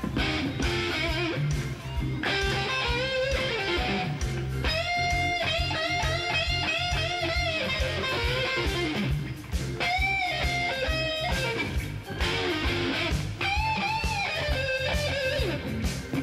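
Live blues-rock band recording: an electric guitar playing a lead line of bending notes over a steady bass and drum beat.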